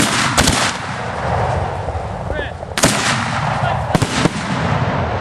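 Fireworks shells bursting: a sharp bang at the start and another just after it, two more about three and four seconds in, with crackling and rumbling between the blasts.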